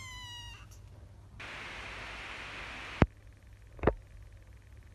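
A kitten meows once, a falling call that ends about half a second in. Then a steady hiss lasts about a second and a half and cuts off with a sharp click, and a second sharp knock follows just under a second later.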